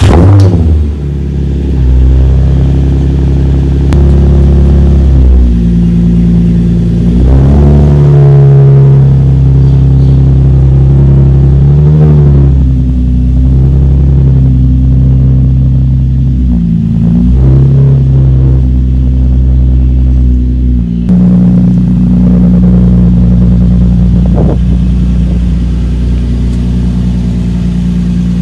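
Nissan 350Z's 3.5-litre V6 running just after being started, idling with a few brief revs that lift the pitch and let it fall back.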